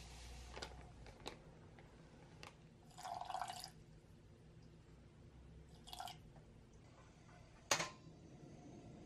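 Water poured into a stainless steel saucepan of granulated sugar, two short splashy pours, with a few faint ticks. Near the end comes one sharp knock, the loudest sound, as the pan goes onto the stove burner.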